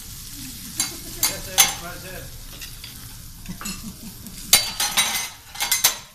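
Noodles and vegetables sizzling on a steel teppanyaki griddle, with sharp scrapes and clacks of a metal spatula on the hot plate: a few about a second in and a louder cluster from about four and a half seconds in.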